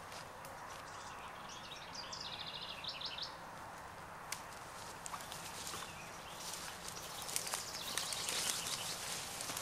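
Footsteps swishing through tall grass, busier in the second half, with a bird singing a short run of repeated chirps about two seconds in.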